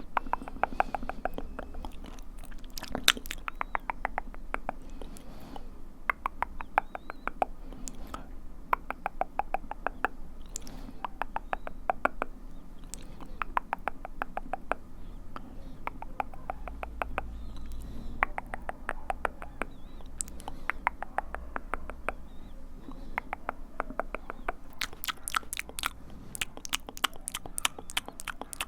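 ASMR mouth sounds close to the microphone: runs of rapid wet clicks and smacks from the tongue and lips. Near the end the clicks turn sharper and come faster.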